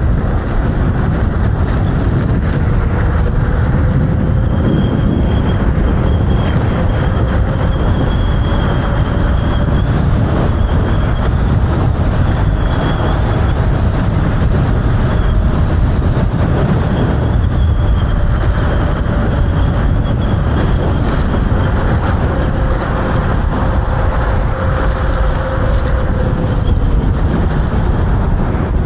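Electric hyperscooter riding at speed: a steady rush of wind and tyre noise, with a thin motor whine that rises about four seconds in and then holds steady until near the end.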